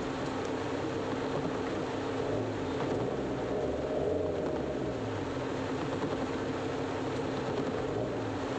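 Heavy rain on a car's roof and windscreen, heard from inside the cabin as a steady hiss over a constant low hum. Engine sound from the surrounding traffic swells and fades around the middle.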